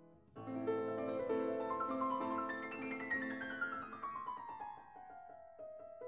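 Background piano music. A new phrase comes in about half a second in, and a run of notes steps steadily down in pitch through the second half.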